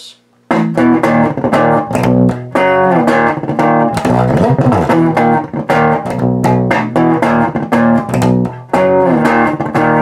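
Warwick Rockbass Infinity electric bass, played through a bass amp with a clean, low-gain tone, running a fast fill of plucked notes and chords that includes a pitch slide about four seconds in. The playing starts about half a second in.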